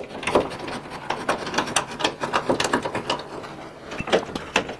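Irregular clicks and light metallic rattles as a small C-clamp is handled and fitted onto a thin 1 mm sheet-steel patch, with the slit steel flexing and tapping against the truck's cab.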